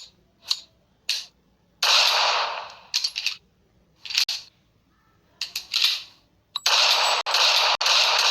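Pistol sound effects for a SIG Sauer P238: sharp metallic clicks of the action being worked, a single shot about two seconds in, and from about six and a half seconds a run of shots roughly twice a second that blend into one continuous ring.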